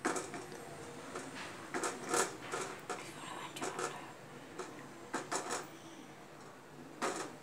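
A long wooden spoon stirring soup in an enamel saucepan, scraping and knocking against the pan in short, irregular strokes.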